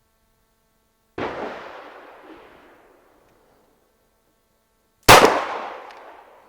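Two pistol shots about four seconds apart, the second louder, each sharp crack echoing away over a second or so.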